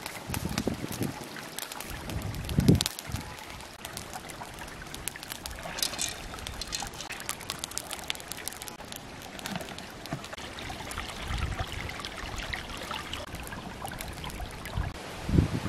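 Stream water trickling over rocks, with scattered light clicks and knocks throughout and a few low thumps in the first three seconds.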